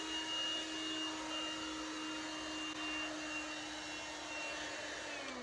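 Handheld hair dryer running with a steady whine, then its motor winding down near the end, the pitch falling as it dies.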